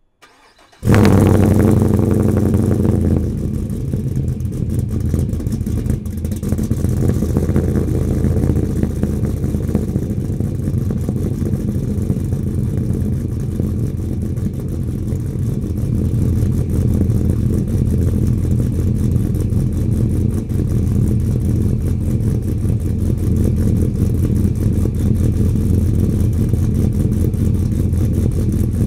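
2018 GMC 1500's 6.2-litre V8 cold-starting through a full aluminum exhaust: it catches about a second in with a loud flare, then settles a couple of seconds later into a steady idle.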